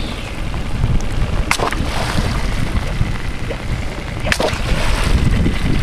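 Small boat moving across lake water: water splashing and sloshing against the hull over a steady low rumble, with a sharp knock about a second and a half in and another near the end.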